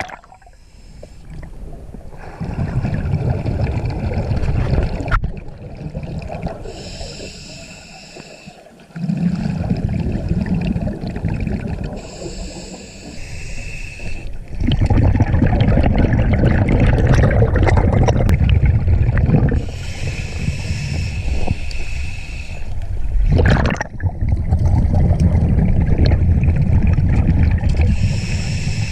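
Scuba diver breathing underwater through a regulator: each exhale is a loud rumbling rush of bubbles, and each inhale is a quieter hiss with a thin steady whistle. About four full breaths come in slow turn.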